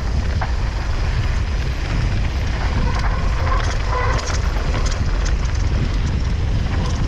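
Mountain bike descending a dry dirt trail at speed: a steady low rumble of wind on the microphone over tyres crunching on dirt and gravel, with scattered clicks and rattles from the bike.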